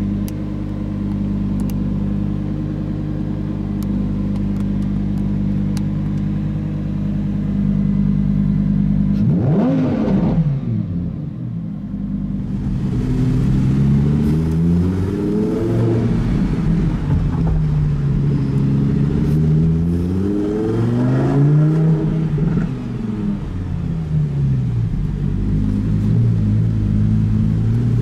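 Lamborghini Huracan Performante's 5.2-litre V10 heard from inside the cabin: idling steadily, then a quick blip of the throttle about nine seconds in, after which the engine note rises and falls several times as the car pulls away under light acceleration.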